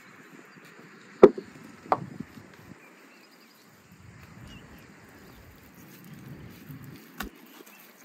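Sharp knocks on a wooden table as things are set down on it: two about 0.7 s apart, the first the loudest, and a lighter one near the end, over quiet outdoor background.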